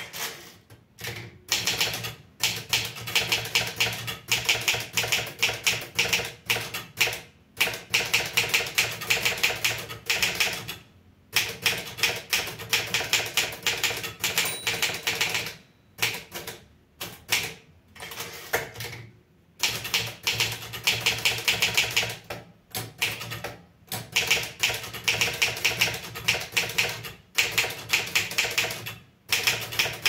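Olivetti Studio 46 manual typewriter being typed on: quick runs of sharp key strikes, several a second, broken by short pauses every few seconds.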